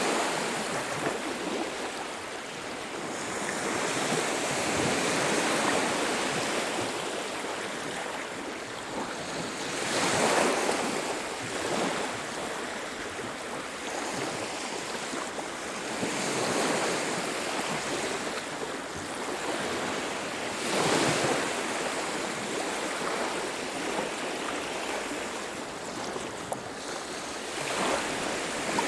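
Sea waves washing onto a beach, a steady wash of surf that swells and falls back every few seconds, with stronger waves about a third and two-thirds of the way through.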